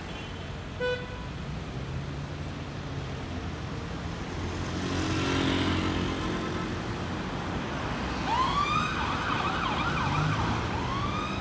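Road traffic with a short beep about a second in; later an ambulance response car's siren starts in quick, repeated rising wails.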